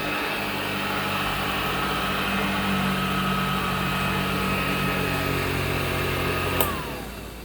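Hoover Junior 1348 upright vacuum's direct-air motor and fan running with a steady whine. Near the end it is switched off with a click, and the whine falls as the motor spins down.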